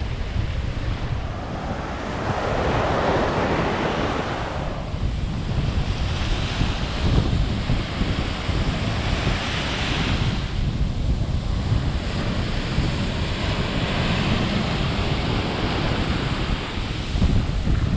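Small ocean waves breaking and washing up a sandy beach, the surf swelling every few seconds, with wind buffeting the microphone.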